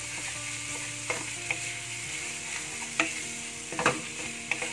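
Beetroot and boiled-potato mixture sizzling steadily in a nonstick wok while a wooden spatula stirs it, with scrapes and knocks of the spatula against the pan about a second in, around three seconds in, and loudest a little before four seconds in.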